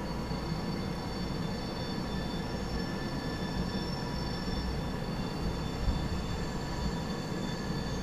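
Norfolk Southern maintenance-of-way camp train rounding a sharp curve: a steady low rumble of the locomotive and rolling cars, with thin, high, drawn-out wheel squeal from the flanges grinding on the curved rail.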